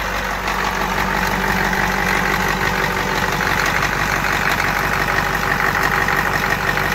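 Ford 7.3 IDI V8 diesel engine idling steadily, shortly after a cold start.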